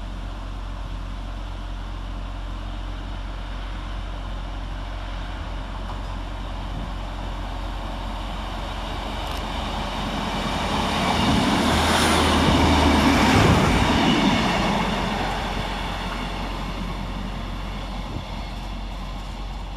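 Class 150 Sprinter diesel multiple unit trundling through the station without stopping. Its engine and wheels build, are loudest around twelve to fourteen seconds in, then fade as it passes.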